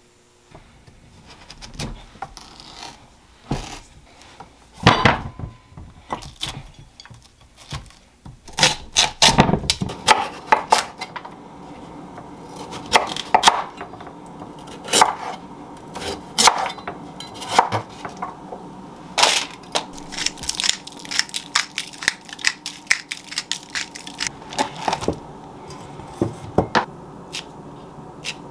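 Kitchen food-prep sounds: a knife cutting on a cutting board and utensils knocking and scraping against metal bowls, an irregular string of sharp knocks and clicks. A steady hum runs underneath from about ten seconds in.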